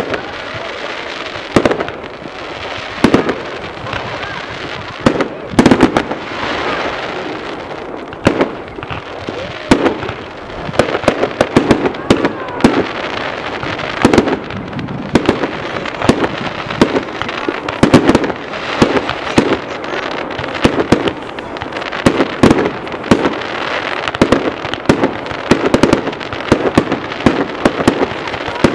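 Fireworks display: aerial shells bursting one after another, with crackling between the bangs. The bursts come thicker and faster from about ten seconds in.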